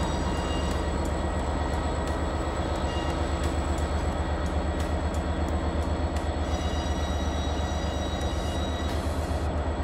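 Class 66 diesel locomotive's two-stroke V12 engine running, a steady low drone with a faint whine on top.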